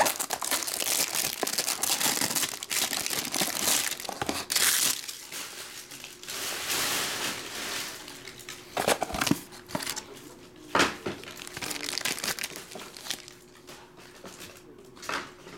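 Plastic shrink-wrap crinkling and tearing as a sealed card box is unwrapped and opened by hand. It then goes quieter, broken by a few sharp knocks as a hard plastic graded-card slab is handled.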